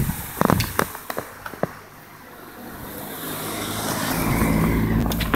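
A motor vehicle driving past, its engine and road noise swelling to a peak near the end. A few sharp knocks come in the first second or so.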